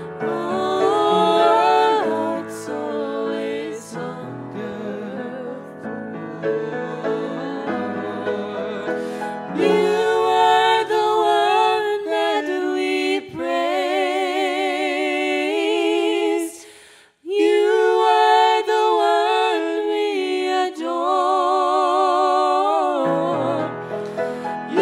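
A female and a male voice singing a worship song together, with vibrato on held notes, accompanied by piano; a short break in the sound comes about two-thirds through.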